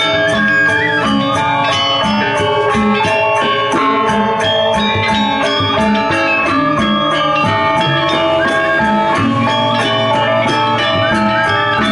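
Balinese gong kebyar gamelan playing a fast piece: bronze metallophones and a row of kettle gongs (reyong) struck with mallets in a dense ringing texture, over a steady, fast run of sharp metallic strikes.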